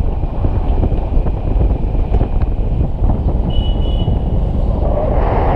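Wind buffeting the microphone of a pole-held camera during a tandem paraglider flight: a loud, steady low rush.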